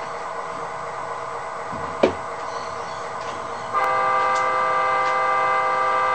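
Loksound DCC sound decoder in an HO-scale model of a 49 class diesel, playing a generic US GM diesel sound project: the engine idles steadily, with a sharp click about two seconds in. Near the middle a loud, steady multi-note horn blast starts and is still sounding at the end, sounded in acknowledgment of the home signal.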